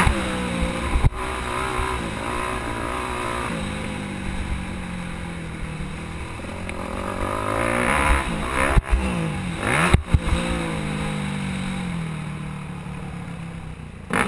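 Yamaha YZ250F motocross bike's four-stroke single-cylinder engine revving, its pitch rising and falling over and over with the throttle. There are a few sharp knocks, two of them close together about nine and ten seconds in. The engine settles lower in the last few seconds.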